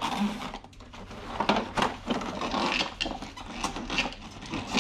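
Hands working a drive track over the plastic wheels of a robotic pool cleaner: irregular rubbing and scraping with small, quick plastic clicks and knocks.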